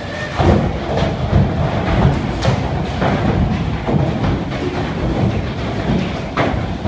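Violent hailstorm: large hailstones pelting down in a dense, continuous clatter of impacts, with a heavy low rumble underneath and a few harder strikes standing out.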